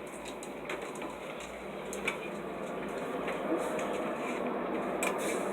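Dishes and utensils clinking and knocking in a kitchen, a few light clicks scattered through a steady background of handling noise that grows slightly louder.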